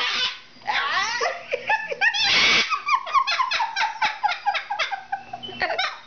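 Sulphur-crested cockatoo calling: a quick run of short squawks and chatter, with one loud, harsh screech about two seconds in.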